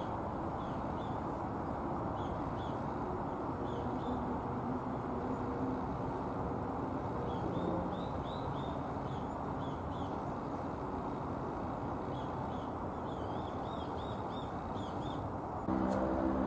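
Short, high chirps from small songbirds in quick clusters, faint over a steady low city hum. Near the end a louder, low pitched sound comes in suddenly.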